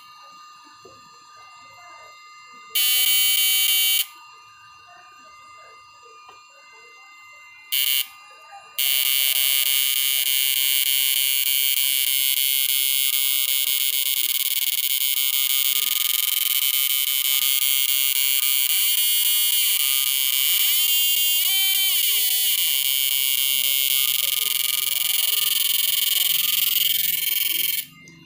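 Loud high-pitched whine from a home-built two-MOSFET power driver inverter and its transformer under heavy load, with the switching frequency turned fully up. It cuts in briefly twice, then runs steadily from about nine seconds in. Its pitch wavers and shifts for a few seconds near the twenty-second mark.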